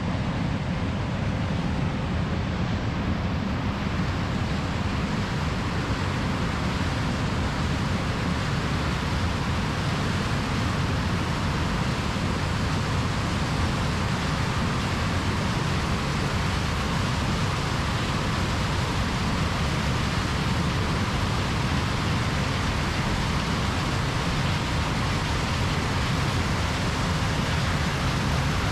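Large diesel harvest machinery running steadily in a corn field, a constant even drone with no changes.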